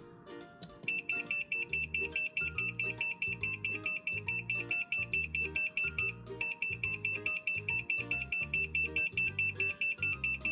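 A bridge load-control kit's buzzer beeping rapidly and steadily, about four to five short high beeps a second, with a brief pause about six seconds in: the full-capacity alert, sounding because the bridge is at its limit of 9 vehicles and further entries are blocked.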